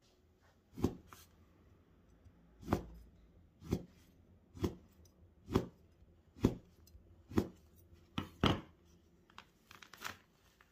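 Chef's knife chopping down through a rolled sheet of fresh egg pasta onto a wooden board, cutting tagliatelle: sharp knocks about once a second, followed by a few lighter taps near the end.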